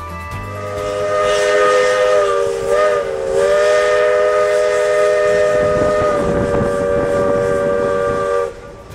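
Steam locomotive's chime whistle blowing one long blast, several tones sounding together as a chord over a hiss of steam. The pitch wavers briefly about three seconds in, and the blast cuts off sharply near the end.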